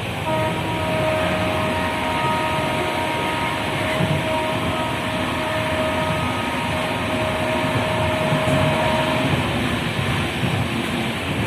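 Passenger train running with a steady rumbling noise. Over it, a chord of steady high tones starts just after the beginning and holds for about nine seconds before stopping.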